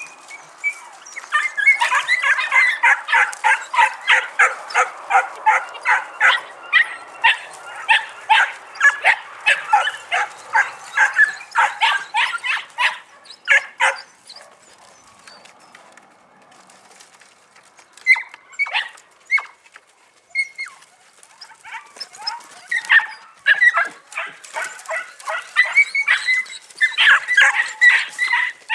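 Podenco puppies yapping in quick, repeated barks, about two or three a second. The barking stops for a few seconds past the middle, then starts again in scattered yaps before building to another fast run near the end.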